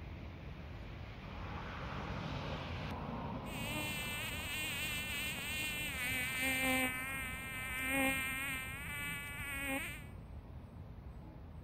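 A fly buzzing for about six seconds, starting a few seconds in, its pitch wavering up and down as it moves, over faint outdoor background noise.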